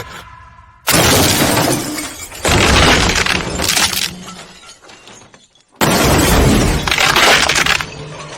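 Car crash-test impacts with glass shattering: three sudden loud crashes, about a second in, at two and a half seconds and near six seconds, each dying away over a second or two.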